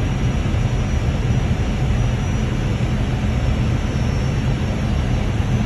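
Steady flight-deck noise of an Airbus A320 on short final approach: a constant rush of airflow and engine noise over a low hum, unchanging throughout.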